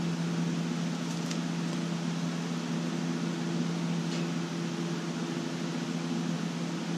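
Steady mechanical hum of a running machine, with a low, even drone and a faint hiss that do not change.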